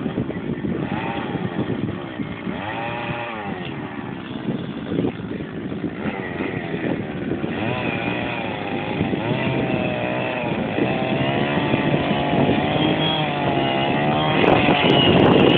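An engine running with its pitch repeatedly swinging up and down, growing louder toward the end.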